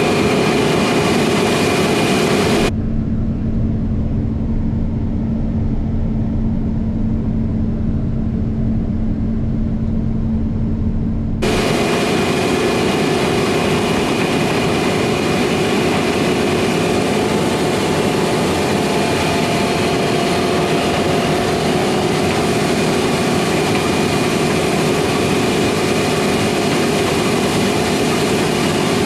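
Heavy harvest machinery, combine, tractor and truck engines, running steadily in the field. From about three seconds in to about eleven seconds the sound turns muffled, with a steady hum, then returns to the fuller engine and machine noise.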